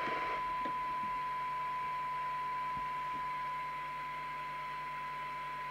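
Midland 77-805 CB radio's speaker putting out a steady, unwavering test tone over a light hiss: the recovered audio of the signal generator's tone-modulated S9 (100 microvolt) test signal. The tone gets slightly quieter about halfway through.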